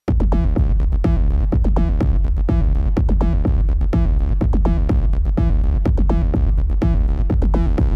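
Acid techno bassline from a Behringer TD-3 (a TB-303-style bass synth) run through an MXR Distortion Plus pedal and a Strymon DIG delay: a fast, even run of squelchy pitched notes over heavy low bass, kicking in suddenly at the start.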